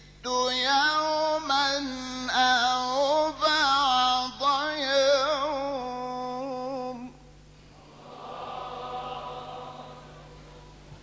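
A man's voice in ornamented, melodic Quran recitation (mujawwad style), with long held notes that bend and waver. It stops about seven seconds in, and a softer murmur of many voices from the audience follows.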